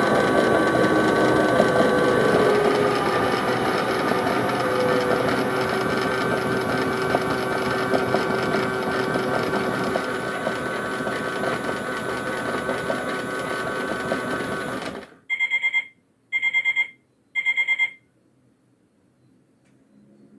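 Battery-powered Theo Klein toy Miele Novotronic washing machine running its small motor, a steady whirring that eases off slightly and stops suddenly about fifteen seconds in. Three short electronic beeps follow, signalling the end of the wash programme.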